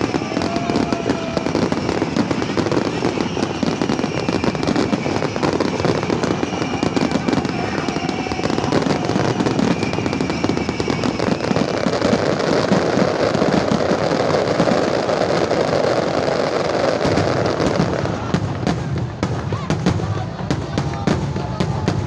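Fireworks final barrage: dense, continuous crackling and banging, with whistling tones over it for the first several seconds, thinning to more separate bangs near the end.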